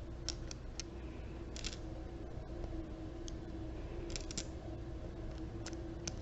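Small travel-size dominoes clicking against each other as they are handled: scattered light, irregular clicks, some in quick pairs.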